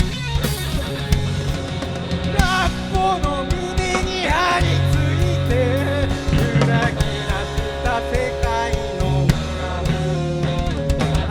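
Live rock band playing a song: drum kit, bass and electric guitar, with a wavering melody line over them from about two seconds in.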